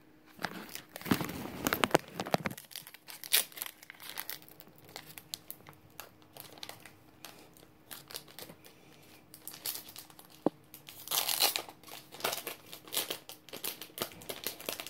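A foil Pokémon trading-card booster pack being torn open by hand: a long stretch of tearing and crinkling about a second in, then scattered crinkles and rustles of the wrapper and cards, with another burst of crinkling near the end.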